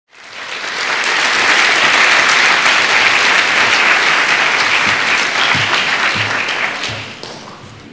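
A large audience applauding, a dense patter of many hands clapping that swells up over the first second and dies away near the end.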